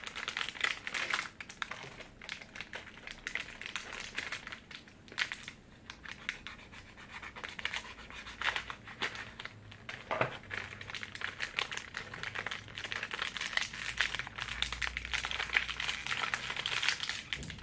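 Wrapper of a tall bag of pizza-flavoured chips crinkling and tearing as it is picked and pulled open by hand, in many irregular crackles.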